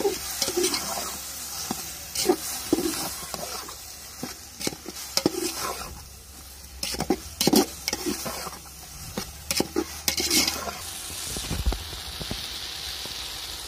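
Metal ladle scraping and knocking irregularly against a metal pot while stirring brinjal pieces frying in oil, over a steady sizzle. Sautéing with a splash of water added to keep it from sticking.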